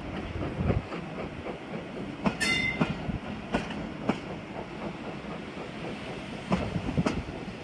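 Passenger coaches rolling along the track, their wheels clicking over rail joints at irregular intervals over a steady rumble, with a brief high wheel squeal about two and a half seconds in.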